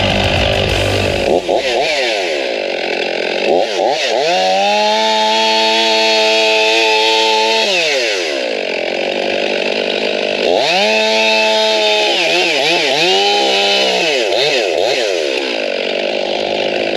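Chainsaw revving up and holding at full speed for a few seconds, dropping back, then revving again with a run of quick throttle changes.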